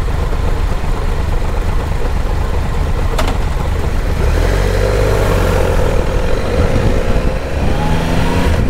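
Motorcycle engine running, heard as a steady heavy low rumble, with a single knock about three seconds in; near the end the engine note rises.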